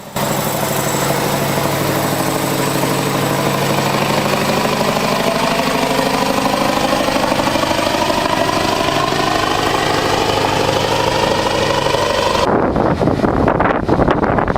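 Heavy truck diesel engine running, its pitch slowly rising and falling. About twelve seconds in it cuts abruptly to a low rumble with wind buffeting the microphone.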